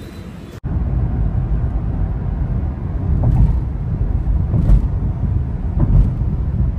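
Steady low road rumble of a car driving at speed, heard from inside the cabin; it starts abruptly about half a second in.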